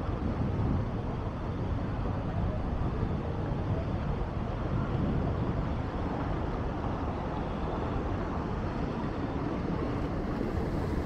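Steady low rumble and noise of a sightseeing boat under way.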